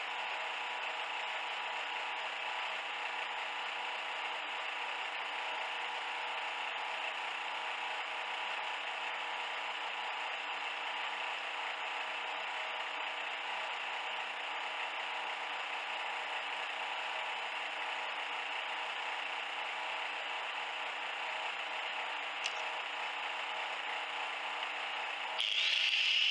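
A steady, even mechanical noise, then about a second before the end an angle grinder switches on and spins up with a rising whine, louder than what came before.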